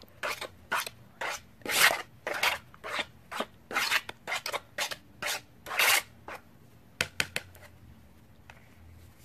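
A spoon scraping and sloshing around a bowl while stirring a thick mixture of glue and baking soda, in short repeated strokes about two a second. The stirring stops about six seconds in, followed by a few light clicks.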